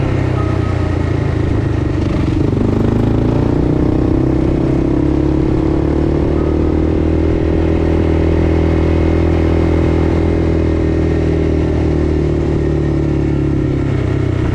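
Quad bike (ATV) engine running while riding down a street. Its pitch dips about two and a half seconds in, then climbs and holds steady.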